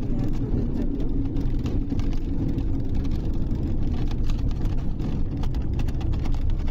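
Steady low rumble of a moving vehicle heard from inside the cabin, with frequent small irregular clicks and rattles.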